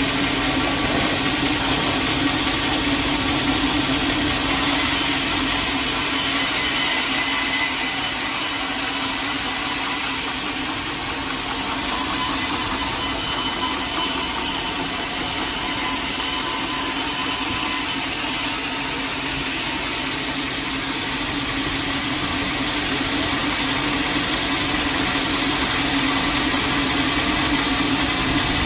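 Sawmill blade running steadily through a log, a continuous sawing noise over a steady hum. The high hiss grows stronger about four seconds in and changes again a little past the middle.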